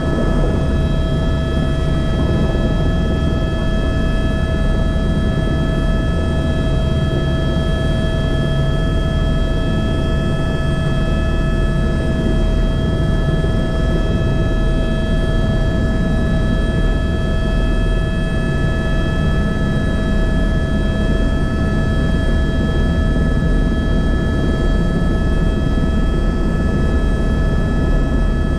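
Helicopter in steady flight: a constant rumble of rotor and engine with a steady high whine over it.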